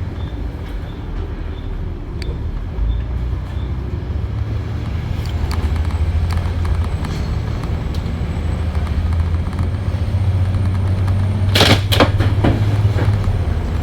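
Volvo B7TL double-decker bus's diesel engine pulling, growing louder, with a thin high turbo whistle that slowly rises in pitch. A faint beeping about twice a second in the first few seconds, and two short loud hisses near the end.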